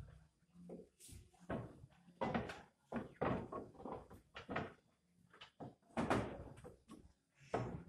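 Irregular wooden knocks and scuffling from Garut rams feeding at wooden troughs in their pens, several uneven bumps and rustles spaced a fraction of a second to a second or so apart.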